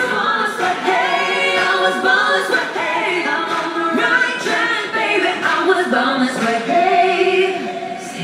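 Background music of voices singing together, choir-like vocal music with the melody moving in long held phrases.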